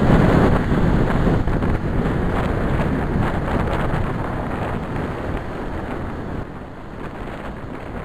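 Strong gusting wind buffeting the microphone over storm surf washing against a sea wall, a dense rushing noise that is loudest at the start and slowly eases off.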